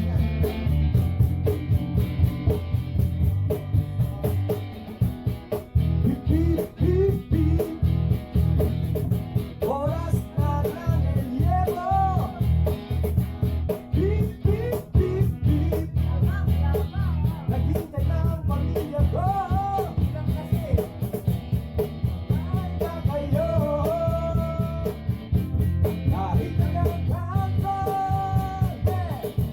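Live acoustic jam: an acoustic guitar strummed in a steady rhythm, with singing coming in about six seconds in and carrying on over the strumming.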